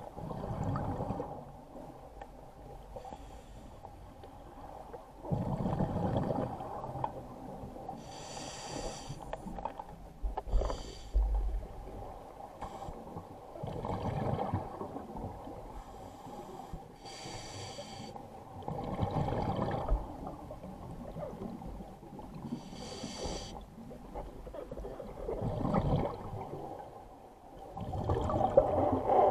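Scuba diver breathing through a regulator underwater: hissing inhalations through the demand valve alternate with bursts of exhaled bubbles, one breath every few seconds, over a steady hum.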